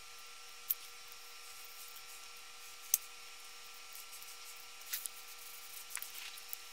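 Faint handling sounds of hands smoothing a cloth on a tiled floor and pressing a banknote onto it, heard over a faint steady hum. There are two sharp clicks in the first three seconds, then a cluster of small rustles and taps in the last two seconds.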